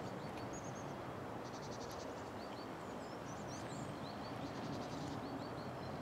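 Small songbirds calling faintly with short high chirps and a quick rapid trill, over a steady rushing background noise.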